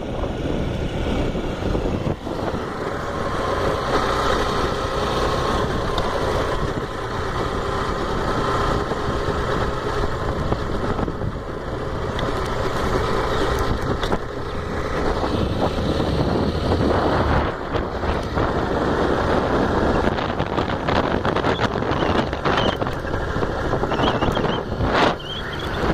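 Motorcycle riding along a road: a steady engine drone mixed with heavy wind rumble on the microphone.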